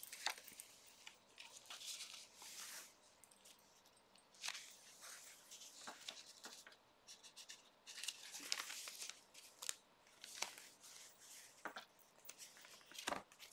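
Soft rustling of old paper as the pages and a flip-up card of a handmade junk journal are lifted and turned by hand, in short swishes every second or two with a few light clicks.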